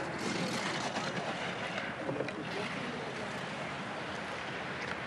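Giant slalom skis carving through the turns on hard-packed course snow, a steady rushing scrape, with faint voices from spectators along the course.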